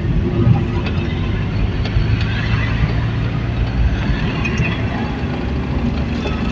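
A bus driving along a road, heard from inside the cabin: a steady engine hum under an even rush of road noise.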